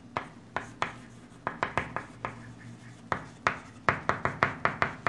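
Chalk tapping and scraping on a chalkboard as words are handwritten: a run of short, sharp clicks that come closer together in the second half.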